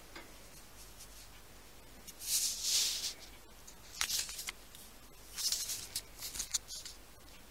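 Shih Tzu nosing and pawing at a laptop keyboard: three spells of scratchy, rustling noise with a few sharp clicks, the first about two seconds in, a short one about four seconds in, and a longer broken one near the end.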